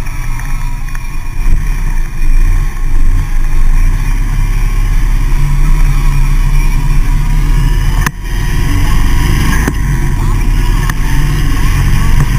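Motorcycle engine pulling away and accelerating through a turn, its low drone rising about two seconds in and dipping briefly about eight seconds in, with wind rushing over the handlebar-mounted camera.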